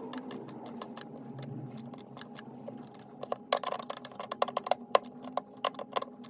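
Cordless drill-driver running steadily as it drives the screws that mount a dimmer switch into the electrical junction box, with a rapid, irregular clicking joining in about halfway through.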